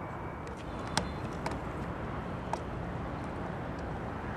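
Steady outdoor rumble and hiss with three short sharp clicks, about one, one and a half, and two and a half seconds in.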